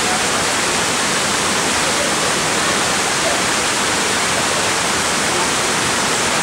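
Waterfall pouring, a steady loud rush of water.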